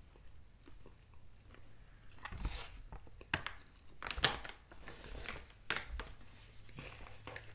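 Plastic food bag crinkling and rustling as it is picked up and handled, an irregular run of crackles starting about two seconds in and loudest near the middle, with some quiet chewing before it.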